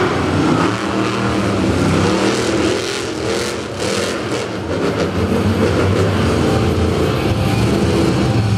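Monster truck engine revving hard, its pitch rising and falling again and again as the truck spins in tyre smoke.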